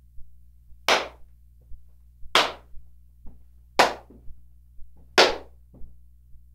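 Hand claps, one about every second and a half, four in all, each sharp with a short room echo. They are picked up from behind a shotgun condenser microphone, as a test of how well it rejects sound from the rear.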